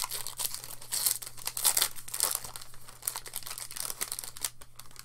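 Foil wrapper of a Magic: The Gathering booster pack crinkling and crackling as it is opened and the cards are pulled out. The crackling is dense and irregular and thins out near the end.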